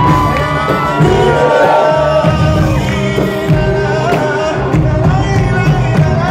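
Live Arabic pop song with a singer backed by a large orchestra, with gliding sung melody lines over a steady bass beat, heard from the audience through a phone's microphone.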